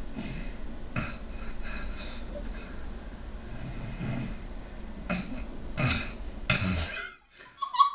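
Two people snoring in turn, rough guttural snores trading back and forth like an exchange. The snoring stops abruptly about seven seconds in.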